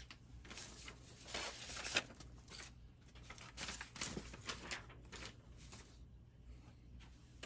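Faint rustling and handling noises, with a sharper click about two seconds in.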